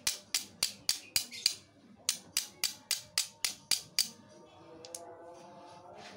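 Flint-and-steel strikes: a steel striker scraped hard against a hand-held stone to throw sparks, in quick sharp clicks about four a second, in two runs with a short pause between. About four seconds in the striking stops and soft background music carries on.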